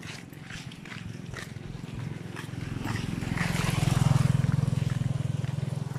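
A small motorcycle's engine approaches and passes close by, loudest about four seconds in, then fades.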